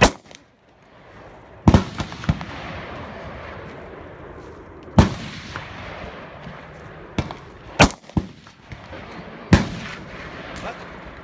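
Gunshots on a shooting range: about eight sharp single reports at uneven intervals of one to three seconds, some louder and some fainter, each trailing off in a short echo.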